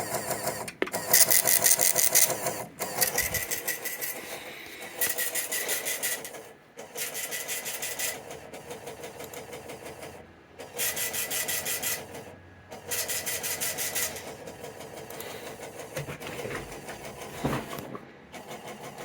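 Rapid, even pulsing buzz of radio interference on a weather-radio alert feed. It comes in stretches of a few seconds, cutting out briefly between them.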